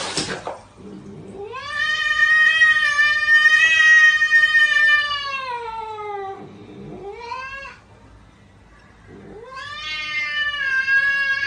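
A cat yowling in long, drawn-out meows: one call of about five seconds that falls in pitch at its end, a short rising call, then another long call near the end.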